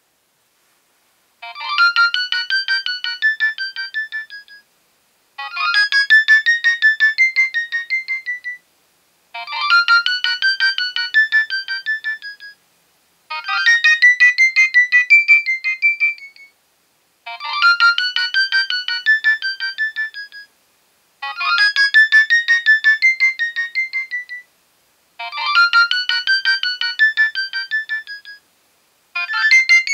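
Nokia 6820a mobile phone ringtone playing: a short melody with several notes at once, about three seconds long, repeated seven times with a brief pause between repeats. It starts about a second and a half in.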